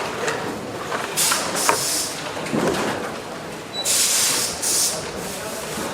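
Tablet assembly-line factory noise: a steady background din broken by several short bursts of hissing, one of them about a second in and two more near the end.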